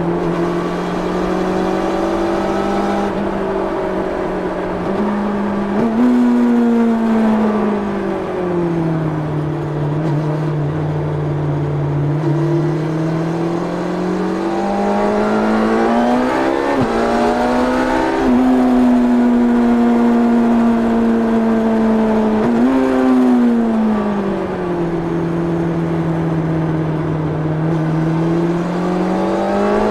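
1990 Yamaha FZR600's inline-four engine through its stock exhaust, heard from onboard the motorcycle while riding. The engine note rises and falls in pitch several times as the throttle is opened and rolled off through a run of corners.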